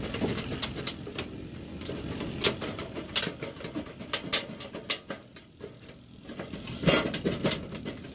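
Aviation snips cutting the lip of an aluminum gutter, a series of sharp irregular metal snips and clicks, with a short quieter gap before a last cluster of clicks near the end. The thin aluminum sheet rattles as it is handled and bent.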